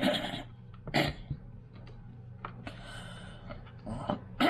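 A man clearing his throat and coughing in short bursts: one at the start, one about a second in, and a loud one at the end, over a steady low hum.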